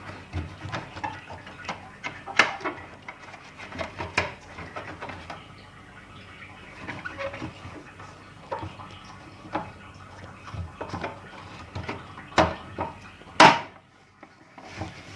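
Light clicks and knocks of a front-load washing machine's cover being handled and fitted back into place, with a sharper, louder knock near the end.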